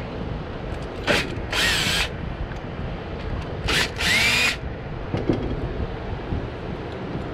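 Ridgid cordless drill-driver backing screws out of a metal lure mold. It whirs in two pairs of short bursts, about a second in and again about four seconds in.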